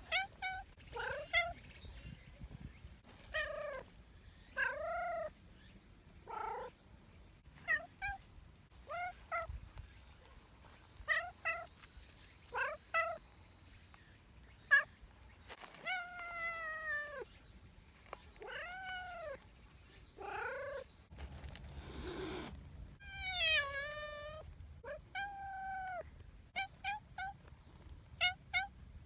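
A domestic cat meowing over and over, short calls that rise and fall in pitch, one after another. A steady high hiss runs behind the first two-thirds, and one longer, drawn-out meow comes near the end.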